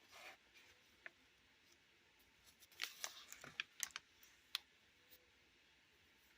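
Art journal pages being handled and turned by hand: a soft paper swish at the start, then a quick cluster of crinkles and sharp clicks a little before the middle.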